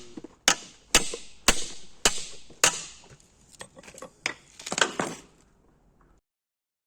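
Hammer blows, about two a second, each with a short ringing decay. The strikes weaken and spread out after about three seconds, then the sound cuts off abruptly.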